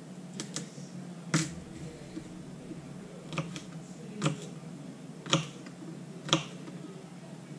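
Kitchen knife chopping garlic cloves on a plastic cutting board: a handful of sharp knocks at an uneven pace, the loudest about a second in and twice near the end, over a steady low hum.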